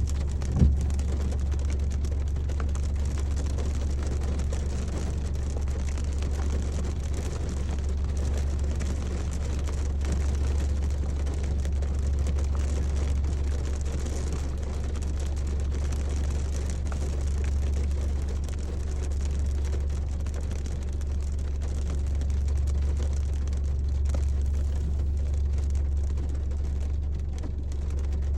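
Steady low rumble of a car driving, heard from inside the cabin, with light rain on the car. There is one short knock about half a second in.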